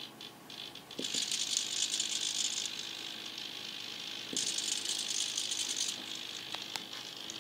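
Cheap Turnigy hobby servos buzzing through their small plastic gears as they slowly throw model railway points. There are two runs, each about a second and a half long and starting with a small click.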